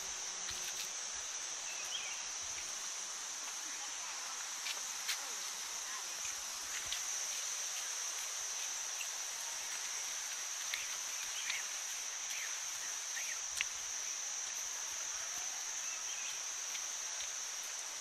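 Insects droning steadily at one high pitch, with a few scattered clicks and short chirps over a light hiss.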